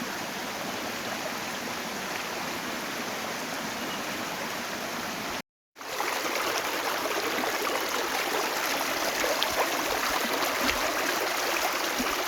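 Creek water running over rocks in small cascades, a steady rushing flow. It drops out for a moment about halfway through, then comes back a little louder and more splashy.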